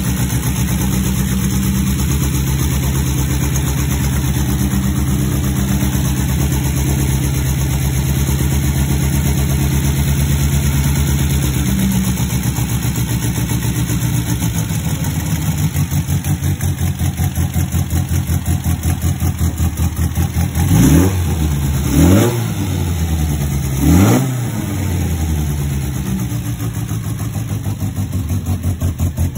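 1974 MGB racer's 1.8-litre B-series four-cylinder engine idling while it warms up after a cold start. The idle changes character about halfway through, and near the end the throttle is blipped three times in quick succession, each a short rise and fall in revs.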